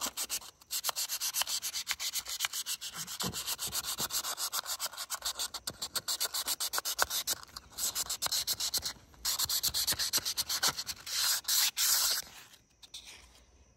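Sandpaper rubbed rapidly back and forth by hand inside the metal bore of a VW TDI ALH brake vacuum pump housing, several scratchy strokes a second with a few short breaks, stopping near the end. It is sanding out scratches in the bore wall.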